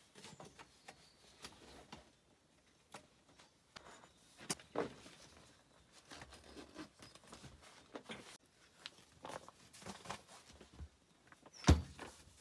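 Camping gear being handled: fabric rustling and scattered clicks and knocks from the frame of a folding stretcher tent being packed up and a folding camp chair being opened, with one sharp knock near the end.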